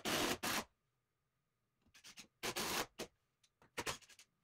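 Cordless drill-driver driving screws into timber studwork, in three short bursts, the last the briefest.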